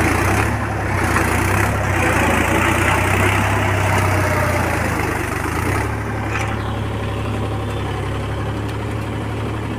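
Tractor diesel engine running steadily, pulling a cage-wheeled puddler through flooded paddy mud. The engine sound drops back a little about six seconds in.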